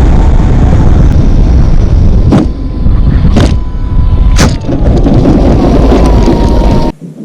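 Heavy wind rush over the microphone of a camera riding on an RC model biplane in flight, with a thin steady whine from its motor. Three sharp clicks come about a second apart in the middle, and the sound drops off abruptly near the end.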